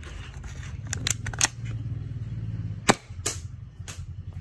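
Metallic clicks from a 1911-style pellet pistol being handled: a quick cluster of clicks about a second in, then one sharp, loud click near three seconds followed by two lighter ones, as the action is worked and the hammer is left cocked. A low steady rumble lies underneath.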